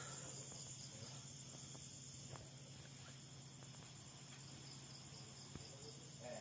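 Faint, steady insects chirring in the night background, with a low steady hum beneath.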